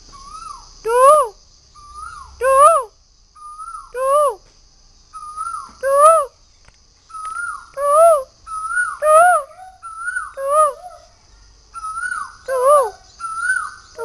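A cuckoo calling: a two-note call, a short even note then a louder note that rises and falls, repeated about nine times and coming faster toward the end.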